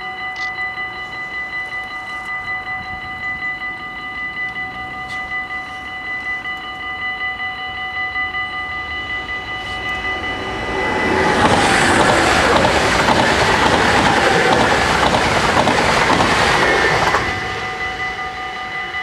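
Level-crossing bells ringing steadily with a pulsing ring. About eleven seconds in, a train rushes through the crossing for about six seconds, drowning the bells, and then the bells ring on alone.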